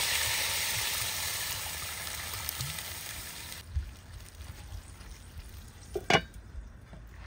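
Food sizzling as it fries in hot oil in a pan, the hiss fading gradually and then breaking off abruptly a little past halfway. After that it is quieter, with a low knock and, near the end, one sharp clink, the loudest sound.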